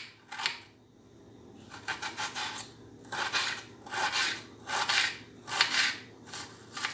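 Kitchen knife slicing through an onion on a cutting board: a run of short cutting strokes, roughly one or two a second, each ending on the board, as the onion is diced finely.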